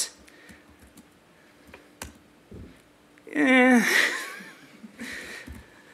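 Quiet laptop keyboard clicks as a command is typed, then about three seconds in a short laugh.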